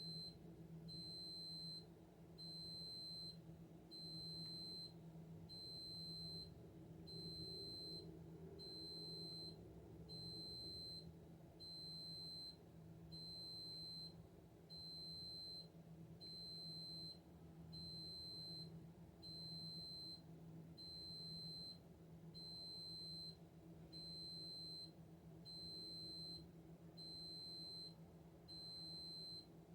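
An electronic alarm beeping steadily: a high, even-pitched tone about a second long, repeating about every second and a half, over a faint low hum.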